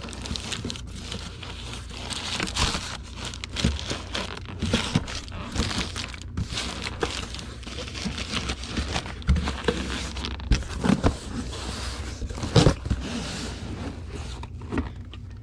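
Plastic bubble wrap and packing material crinkling and rustling as it is worked into a cardboard shipping box, with scattered clicks and a few knocks from handling the box.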